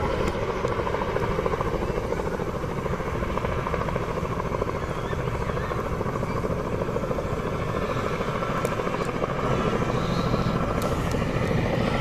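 Firefighting helicopter flying with a water bucket slung beneath it, its rotor and engine running steadily.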